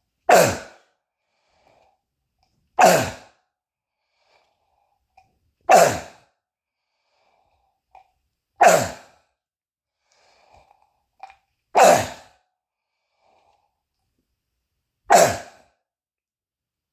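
A man's croup cough from bronchitis: six loud coughs, one about every three seconds, each a single sudden burst that trails off quickly. He says it sounds like screaming.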